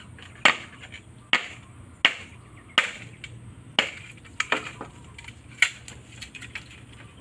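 A tool striking bamboo in sharp blows, about eight strikes roughly a second apart, two in quick succession around the middle.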